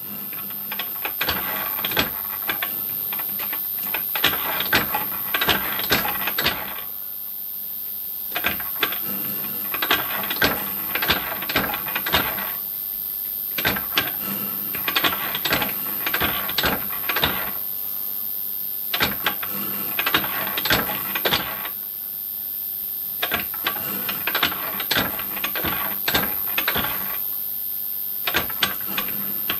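Keyway being cut by hand in a cast iron gear's bore on a lathe: the saddle is cranked back and forth so the slotting tool scrapes through the bore, a couple of thou per cut. Runs of rapid scraping clicks a few seconds long, about six in all, with short pauses between.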